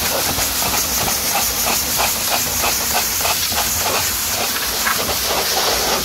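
High-pressure washer jet spraying water against a car's door panels and sill: a loud, steady hiss with a quick, irregular spatter as the jet sweeps over the metal.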